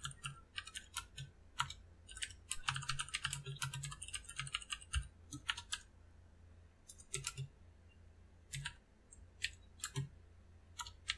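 Typing on a computer keyboard: irregular key clicks, with a quick run of keystrokes about three seconds in and short pauses later on.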